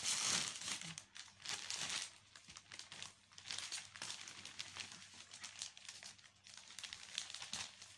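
Plastic mailer packaging crinkling and crackling as it is handled, loudest in the first couple of seconds.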